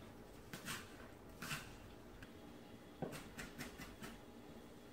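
Knife cutting green onions on a thin plastic cutting mat: a few faint scattered cuts, then a quick run of about five chops about three seconds in.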